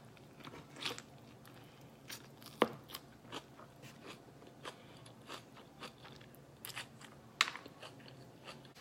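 A person chewing and biting food up close to the microphone: irregular crunches and small mouth clicks, with a couple of sharper crunches about a third of the way in and near the end.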